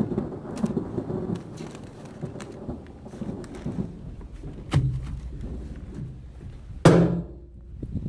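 Heavy black plastic sheeting rustling and crinkling as it is pulled and tucked around an IBC tank, with many small crackles. Two louder sudden flaps or snaps of the sheet, one near five seconds in and a louder one near seven seconds.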